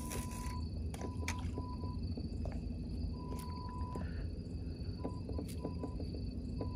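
Night insects such as crickets trilling steadily in high, unbroken tones, with shorter on-off calls a little lower in pitch. Scattered faint clicks and a low background rumble run underneath, and a short rush of noise comes right at the start.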